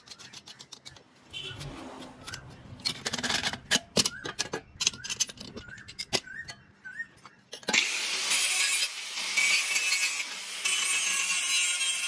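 Steel parts of a scrap-steel toy clinking and knocking as they are handled, with a few short scrapes. About two-thirds of the way in, an angle grinder starts grinding steel plate, a loud steady hiss that dips briefly twice.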